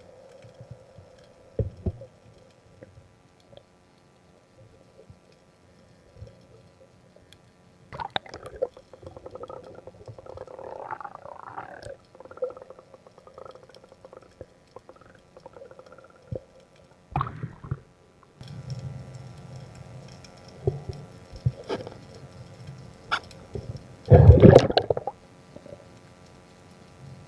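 Muffled underwater sound through a waterproof camera housing: scattered knocks and clicks and watery bubbling, with one louder gurgling burst near the end.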